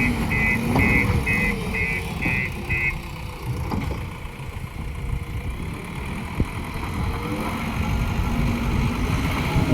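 JCB 3DX backhoe loader's diesel engine running, with its reversing alarm beeping about twice a second for the first three seconds, then stopping.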